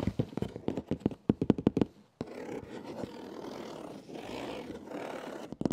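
Fingertips and nails tapping rapidly on a cardboard shipping box, then scratching steadily across its top and packing tape for about three seconds, with a few more quick taps near the end, done as ASMR close to a clip-on microphone.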